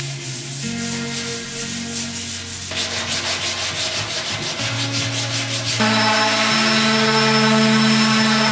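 Sandpaper rubbing along a softwood board in quick, repeated strokes. About six seconds in, the sound turns louder and steadier as an electric orbital sander runs on the wood, with a steady motor hum.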